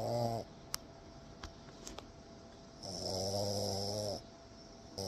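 French bulldog snoring in drawn-out snores: one ends about half a second in, the next starts about three seconds in and lasts over a second, and a third begins at the very end. A few small clicks fall in the pause between snores.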